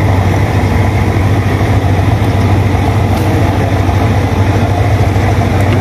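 Small boat's engine idling steadily with an even low hum.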